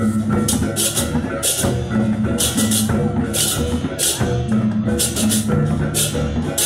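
Balinese baleganjur gamelan playing loudly for the procession: repeated clashes of ceng-ceng cymbals, one to two a second, over drums and steady ringing gong tones.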